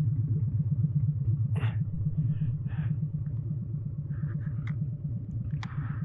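Harley-Davidson V-twin engine idling at low speed with its rhythmic, lumpy pulse, with a few faint short noises over it.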